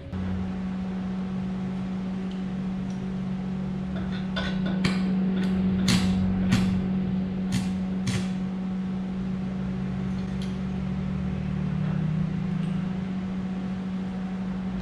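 Arc welder humming steadily while steel gate pipe is welded. Around the middle come a series of short, sharp crackles as the arc strikes and sputters in brief tacks.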